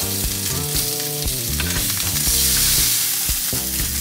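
Olive oil sizzling steadily in a hot cast-iron grill pan as seared salmon fillets are lifted out.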